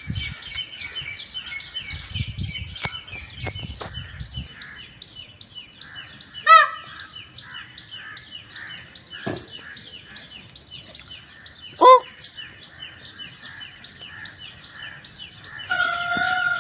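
Steady, rapid high chirping, about four chirps a second, with two short, loud calls from Indian peafowl about five seconds apart. Low rustling comes in the first few seconds.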